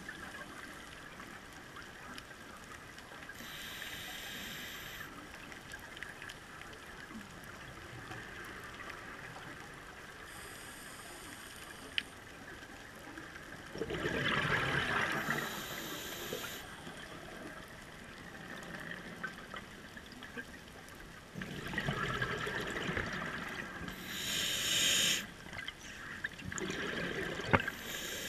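Scuba diver breathing through a regulator, heard underwater: several breaths, each a short high hiss of inhalation and a louder burst of bubbling exhalation, over a steady underwater background noise.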